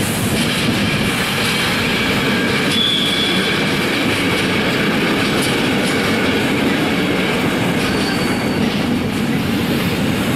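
Freight wagons of an intermodal container train rolling past, a steady rumble of wheels on rail. Brief high-pitched wheel squeals come about three seconds in and again about eight seconds in.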